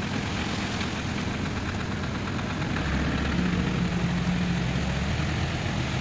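Engine idling steadily, its low hum growing a little louder and steadier in pitch for a couple of seconds in the middle.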